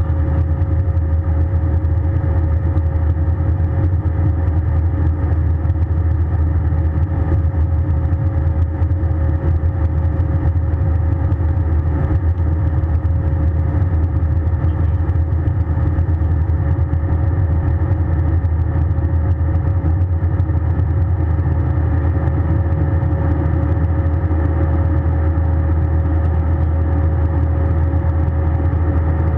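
Steady airliner cabin noise inside an Airbus A320: a loud, even low drone of the engines and airflow with a thin steady whine above it.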